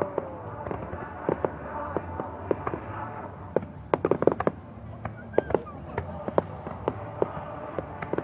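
Aerial fireworks bursting overhead: a stream of irregular sharp pops and crackles, thickest about four seconds in.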